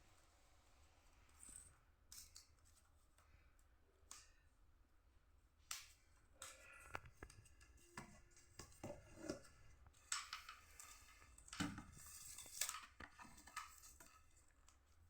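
Faint sounds of a parcel being cut open and unpacked: packing being cut or torn and cardboard and plastic handled, in scattered short snips, clicks and rustles, busiest in the middle.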